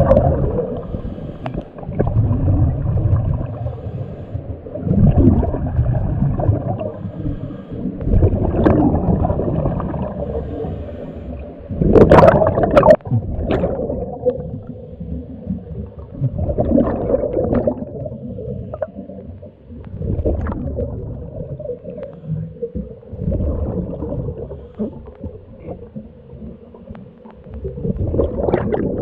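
Scuba diver breathing through a regulator underwater: bursts of exhaled bubbles gurgle and rumble every three to four seconds, the loudest about twelve seconds in.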